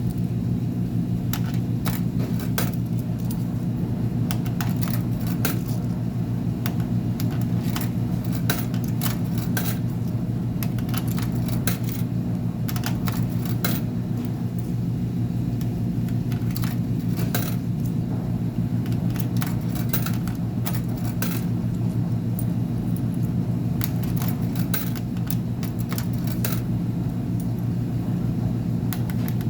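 Steady machine hum of commercial laundry machines, with frequent light clicks and clinks scattered irregularly over it.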